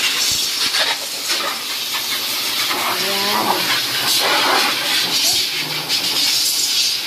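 Pet grooming blower (forced-air dog dryer) running steadily, blowing a strong hiss of air through its hose and nozzle onto a wet puppy's fur.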